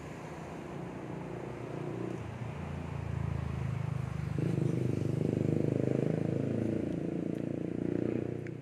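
A motor vehicle's engine running, growing louder over the first five seconds or so and cutting off abruptly near the end.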